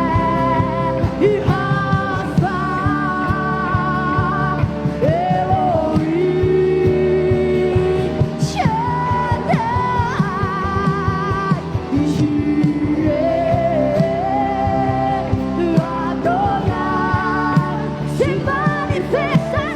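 Christian worship song: a singer holds long notes with a wavering vibrato and slides between pitches over steady band accompaniment.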